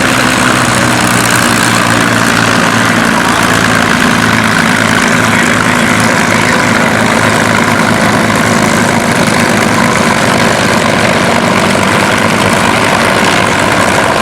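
Propeller-driven airplane's piston engine running steadily at low power, like an idle or taxi.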